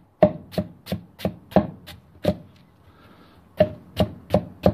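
Hand chopper (sechka) blade chopping carrot and onion in a wooden trough: sharp knocks of the steel blade through the vegetables onto the wood, about three a second, pausing for about a second midway.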